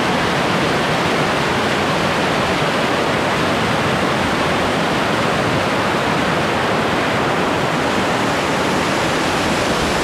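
Crabtree Falls' cascading water rushing steadily: a loud, even, unbroken sound of falling water.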